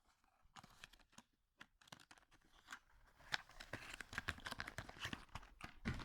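A few faint scattered clicks, then crackling, rustling noise from about three seconds in, like something being crumpled or handled close to the microphone.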